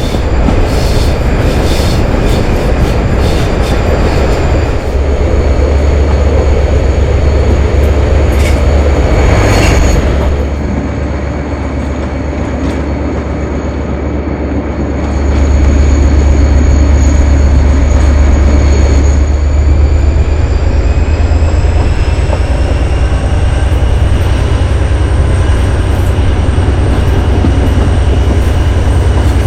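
Class 57 diesel locomotive's GM two-stroke engine working hard under power, with a steady high whine over its low note and clicks of wheels over rail joints in the first half. About ten seconds in the engine eases off for a few seconds, then comes back up to full power, the whine rising in pitch.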